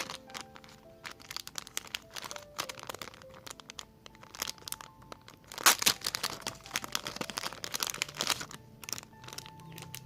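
Plastic packaging crinkling and crackling as a parcel or album is unwrapped by hand, busiest and loudest in the middle, over soft background music.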